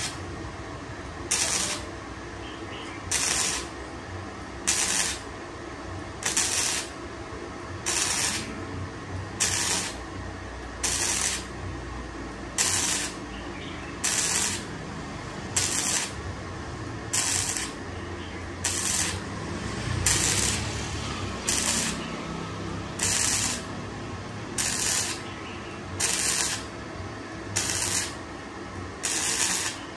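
Gasless flux-core MIG welder (ZARU MIG-300S) arc crackling in short bursts of about half a second, one every second and a half or so. Each burst is a quick dab of the trigger laying a tack on thin sheet steel, stitching the seam so the thin sheet does not burn through.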